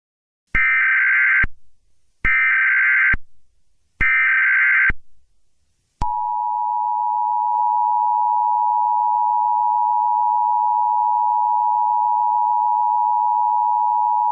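Emergency Alert System data header: three short bursts of warbling digital screech, each under a second long, about a second and a half apart. About six seconds in, the steady two-tone EAS attention signal begins and holds, a sustained harsh dual tone that signals an alert message is about to follow.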